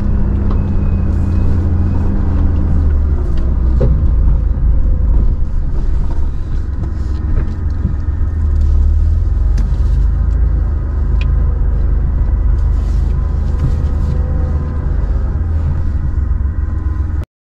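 4x4 vehicle driving slowly over a soft sand track, heard from inside the cabin: a steady low engine-and-tyre rumble with scattered knocks and rattles from bumps. It cuts off suddenly near the end.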